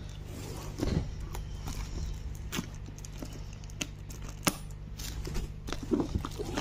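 Shiny foil gift wrap crinkling and crackling in irregular sharp bursts as scissors snip into it and hands handle the wrapped box, over a steady low hum.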